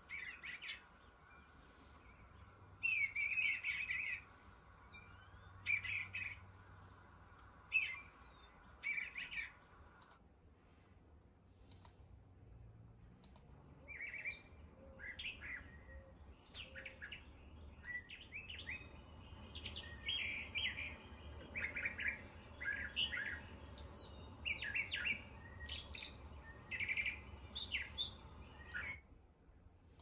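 Bluebird singing short warbled phrases every second or two. After a short pause, a brown thrasher sings a long run of quick, varied phrases, one after another.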